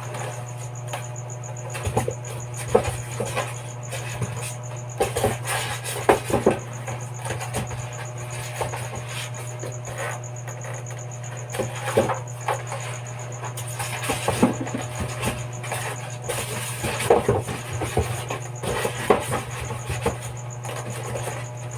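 Irregular knocks, taps and rustles of a washing machine and its packing being handled and put back into the cardboard box, over a steady low hum.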